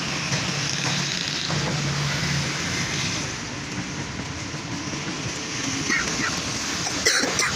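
Steady rushing hiss of a handheld electric heat gun blowing, over the running noise of road traffic, with a short sharp knock near the end.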